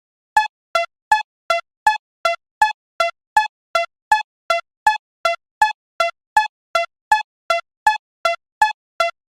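Japanese railroad crossing alarm ringing its electronic "kan-kan": short dings alternating between two pitches, about two and a half a second, starting just under half a second in.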